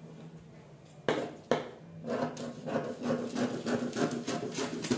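Two sharp knocks as the scissors and paper are handled on the table, then scissors cutting through the brown paper pattern in a quick run of repeated snips.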